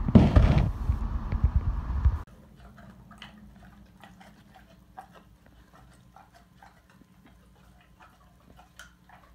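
About two seconds of loud outdoor noise with a strong rush near the start. Then, indoors, a Doberman close by makes faint scattered clicks and soft snuffles as it mouths and sniffs.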